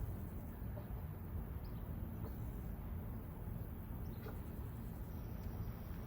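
Steady low rumble of combine harvesters working a barley field at a distance, with a few faint high chirps.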